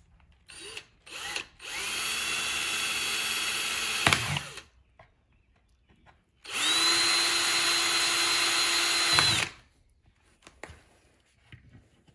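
Cordless drill boring 11/64-inch holes through a thin plastic hubcap: a few short trigger taps, then two runs of about three seconds each. Each run's motor whine rises in pitch as it starts, then holds steady.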